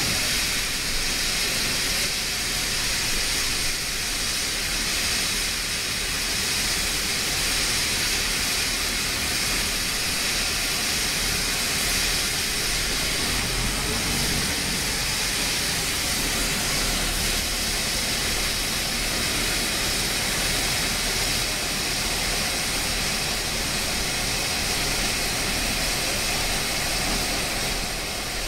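Steady hiss of steam escaping from a standing steam locomotive, with the low running of T class diesel-electric locomotives moving slowly closer underneath.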